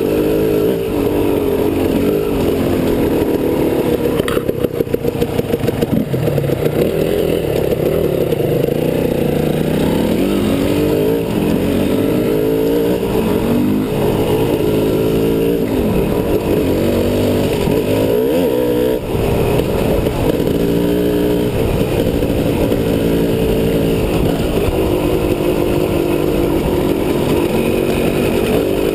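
Motorcycle engine running under way, its pitch rising and falling over and over as the throttle opens and closes, over a steady rush of riding noise. There is a stretch of rattling jolts about four to six seconds in.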